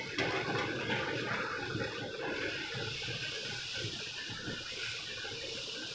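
Poori deep-frying in hot oil, a steady sizzling hiss, a little louder in the first second as the dough goes in, while the poori is pressed under the oil so that it puffs up.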